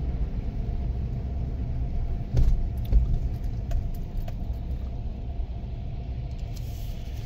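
Steady low rumble of a car driving on a snowy road, heard from inside the cabin. Two brief knocks come about two and a half and three seconds in.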